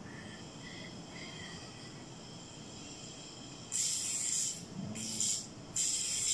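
Faint high steady tones, then, a little past halfway, three loud bursts of harsh hissing noise in quick succession, the last running on.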